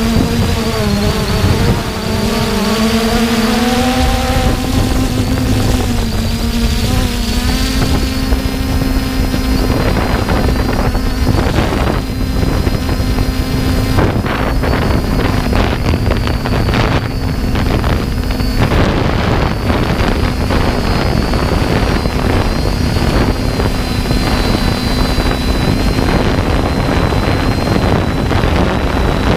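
3DR Iris+ quadcopter's four electric motors and propellers humming steadily in flight, heard close up from the camera it carries. The pitch rises a little a few seconds in. Wind buffets the microphone in gusts, most in the middle.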